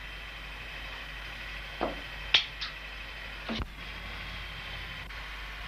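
A few short knocks and clicks over a steady background hiss: a dull thud nearly two seconds in, a sharp click just after it, and another thud around three and a half seconds in.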